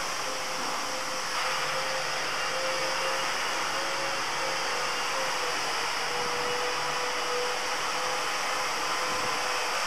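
Steady hiss with a faint wavering hum underneath, the background noise picked up by a security camera's built-in microphone; the hiss steps up slightly about a second and a half in.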